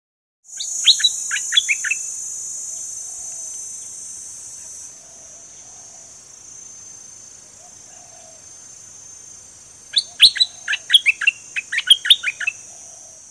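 Stripe-throated bulbul singing: a short run of about six quick notes near the start, then a longer run of about a dozen quick notes from about ten seconds in. Under it runs a steady high insect drone that gets quieter about five seconds in.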